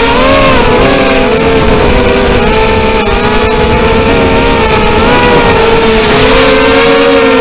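ZMR250 racing quadcopter's brushless motors and propellers whining in flight, the pitch of the several motors wavering up and down together as the throttle changes, over a rumble of air noise and a thin steady high tone.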